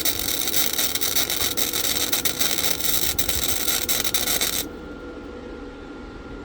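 Flux-core wire-feed welding arc crackling steadily as a bead is laid, then cutting off suddenly about four and a half seconds in when the trigger is released, leaving a faint steady hum.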